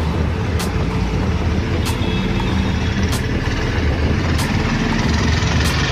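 A vehicle's engine running steadily under the hiss of tyres on a rain-soaked road, with a short high tick repeating about every 1.3 seconds.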